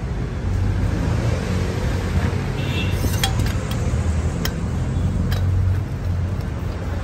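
Steady low machine hum with a hiss over it, and a few sharp metallic clinks about three, four and a half and five seconds in, from the stainless flush canister and its hose fitting being handled.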